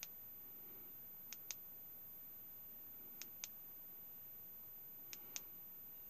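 Push-button switch on an LED tactical flashlight being clicked, each press a quick double click, about every two seconds: the light being stepped through its output modes.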